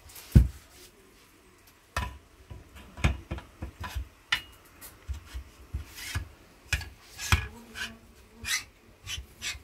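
Metal parts of a PCP air rifle handled on a workbench as its air reservoir tube is fitted: a heavy knock about half a second in, then irregular clicks, taps and rubbing of metal on metal.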